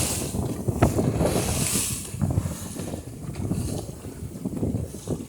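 Wind buffeting the microphone over water splashing against the hull of a Banks dory sailing upwind through chop, the noise swelling and easing with the gusts and waves. There is a sharp knock about a second in.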